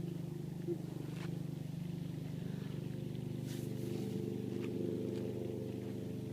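A steady low mechanical hum, like a running engine or motor, with a few faint clicks.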